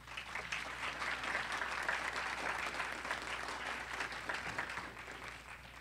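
Audience applauding, a dense patter of many hands clapping that starts at once, holds for several seconds and fades out near the end.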